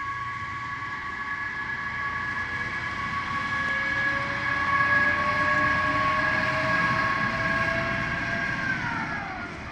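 Passenger railcar passing on the station track, its drive giving a steady multi-tone whine with one tone slowly rising as it gains speed. All the tones slide down in pitch near the end as it goes by.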